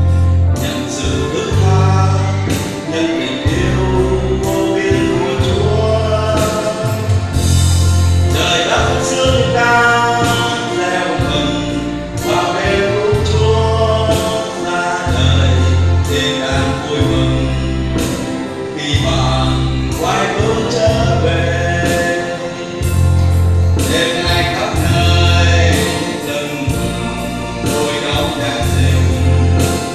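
A woman and a man singing a Vietnamese Christmas hymn as a duet into a microphone, over instrumental accompaniment with a pulsing bass line.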